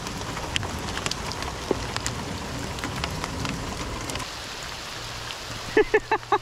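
Steady rain falling and pattering, with scattered single drops ticking close by. A short, loud burst of a voice breaks in at the very end.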